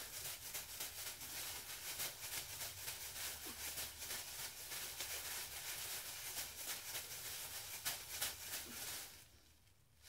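Thin disposable plastic gloves crinkling and rubbing through curly hair as dye is worked into the ends: a steady crackly rustle that stops about nine seconds in.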